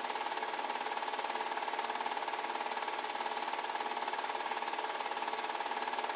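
8 mm film projector running: a steady, fast mechanical clatter from its motor and film-advance mechanism.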